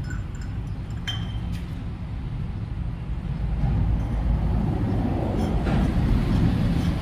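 A steady low mechanical drone from a running machine, growing louder about four seconds in. Light metallic clinks from handling the tractor's fuel-filter housing, one about a second in.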